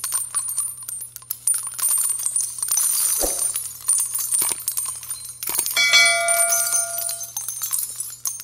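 Sound effects for an animated subscribe button: a run of clicks and crackles, a thud about three seconds in, and a ringing chime of several tones starting near the middle and dying away over about a second and a half.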